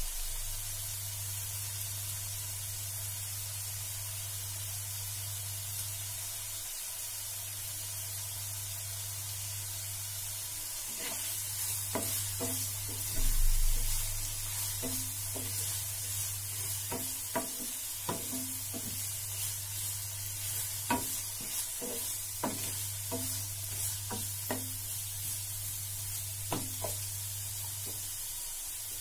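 Sliced onions sizzling in oil in a nonstick frying pan, a steady hiss. About eleven seconds in, a wooden spatula starts stirring them, knocking and scraping against the pan again and again until near the end, loudest in a brief rush soon after it starts.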